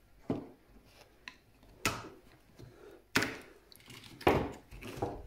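Sharp clicks and knocks from handling a half-stripped computer power supply, four of them loud: tin snips and the wire bundle knocking against the metal case and its parts.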